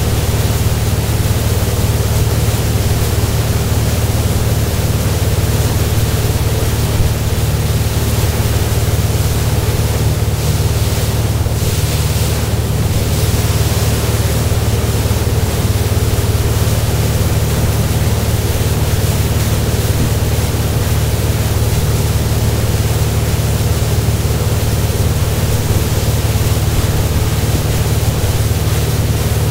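A tow boat's engine running steadily at towing speed, a constant low drone, mixed with the rush of wind and churning wake water.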